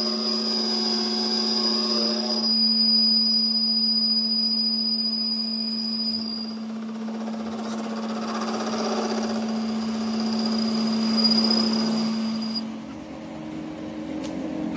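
Metal lathe turning the flange of a Fiat tractor axle shaft while a single-point tool cuts its face: a steady motor hum with a thin high whine from the cut. Both stop near the end.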